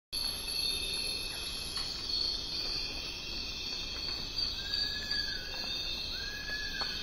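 Nature ambience: a steady chorus of insects, with two short whistled bird calls, each rising and then falling, in the second half.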